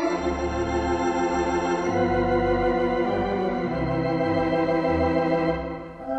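Organ music: sustained chords held over a moving bass line, with the sound dipping away briefly near the end.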